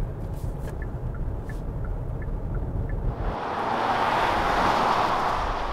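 Low, steady road rumble inside a moving SUV's cabin. About three seconds in it gives way to the 2020 Kia Sorento driving past outside, its tyre and engine noise swelling and then fading.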